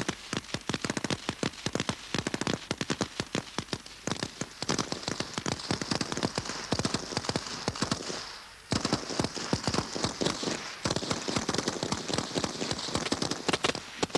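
British Army 7.62 mm general-purpose machine guns (L7 GPMG), belt-fed on bipods, firing automatic bursts: rapid, overlapping shots with a short break about eight seconds in.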